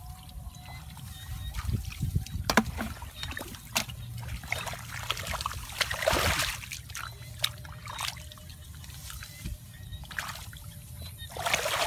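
Bare hands digging and scooping in wet mud and shallow paddy water, with irregular splashing and trickling. A few sharp clicks come in the first few seconds, and the splashing swells louder about halfway through and again near the end.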